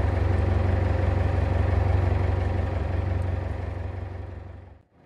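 Fishing boat engine running steadily with a deep drone, fading out near the end.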